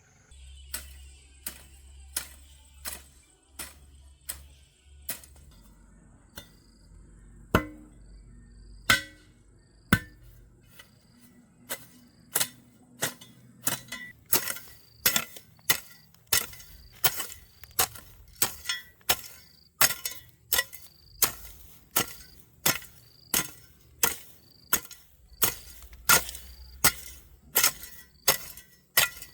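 Repeated sharp strikes of a hand tool in building work, uneven at first, then a steady run of about two blows a second.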